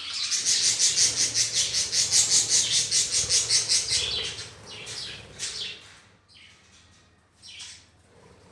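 Flock of budgerigars chattering, a loud, dense run of rapid high chirps for about the first four seconds that then thins to scattered calls.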